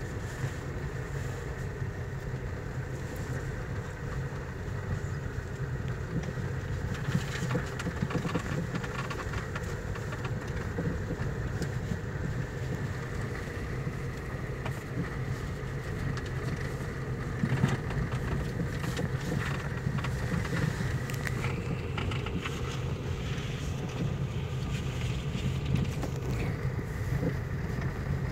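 Steady hum of a small Toyota hatchback's engine heard from inside the cabin, with the low rumble of its tyres rolling over dirt ground.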